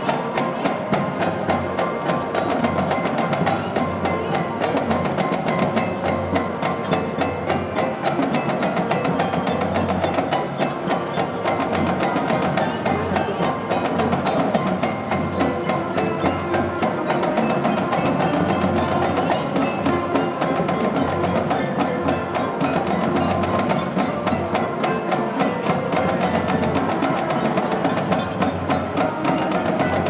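Marching band music led by its front-ensemble percussion: a fast, even run of strokes on mallet instruments and drums over sustained band sound.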